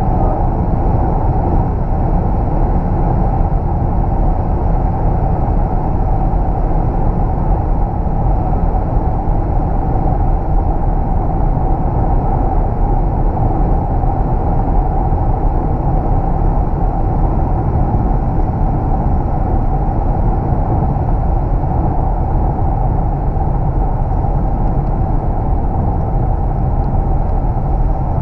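Steady in-cabin noise of an Opel Insignia Country Tourer, with its 2.0-litre four-cylinder biturbo diesel, cruising at motorway speed of around 130 to 165 km/h: an even rumble of tyres, wind and engine.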